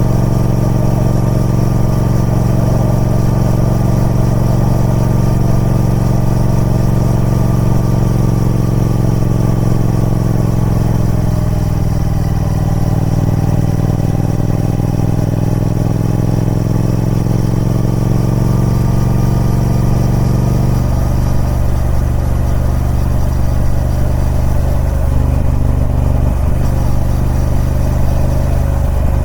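Triumph Speed Twin 1200's parallel-twin engine running steadily through its stock exhaust. Its pitch shifts slightly around the middle and changes again about two-thirds of the way through.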